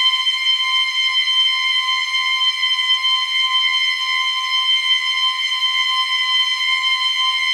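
Sound-design metal scrape drone: a steady, high metallic ringing tone with several evenly spaced overtones above it and no bass, held at an even level without change.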